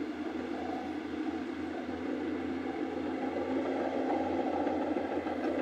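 Distant heavy engines of a tractor towing a loaded log truck up a steep grade, a steady low drone that grows slightly louder in the second half.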